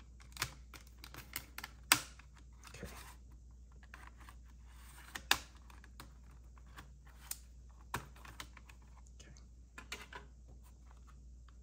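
Plastic clicks and snaps from the back cover of a Lennox 10F81 thermostat being pried off its brittle snap tabs. The clicks are scattered and irregular, the sharpest about two seconds in and just after five seconds.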